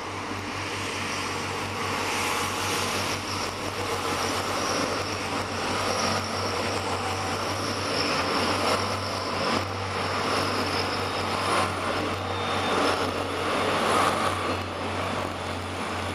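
Irish Rail diesel multiple-unit train passing over a level crossing: the engine and wheel noise grows louder over the first few seconds and stays loud, with a few sharp knocks, and eases slightly near the end.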